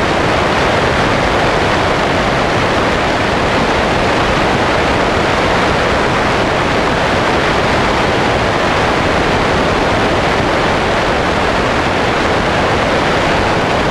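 Steady rush of wind over a camera mounted on the wing of a Sonex light aircraft in flight.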